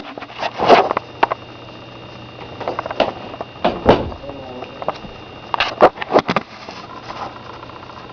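Sony VX1000 camcorder with autofocus on, its recorded sound carrying a weird noise: a steady high whine and low hum broken by irregular loud bursts of noise. The uploader ties the noise to autofocus.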